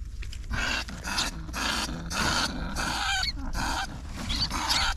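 A bandicoot rat in a wire cage trap hissing in a string of harsh bursts, about two a second.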